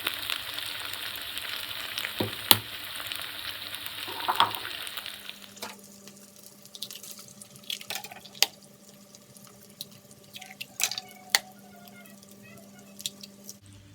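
Yam cakes in sweet dark sauce sizzling and being stirred in a hot wok. About five seconds in the sizzle drops away, leaving a faint steady hum broken by several sharp taps.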